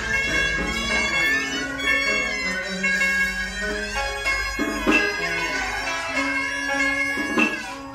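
Vietnamese ceremonial ritual music (nhạc lễ) led by a reedy double-reed wind instrument playing a sustained, gliding melody, with a couple of percussion strikes in the second half.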